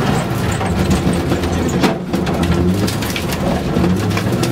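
Car engine running hard and shifting in pitch, heard from inside the cabin, with a steady patter of loose gravel and stones rattling against the body.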